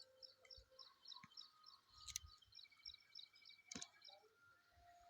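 Faint birdsong: a small bird repeats a short high chirp about four times a second, with a few held whistled notes from other birds. Two sharp clicks come about two and four seconds in.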